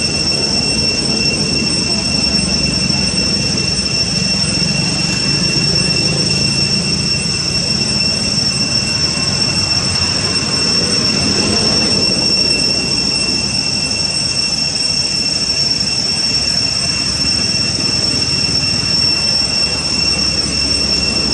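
Steady, high-pitched insect drone of cicadas, holding the same pitch without a break, over a low background rumble.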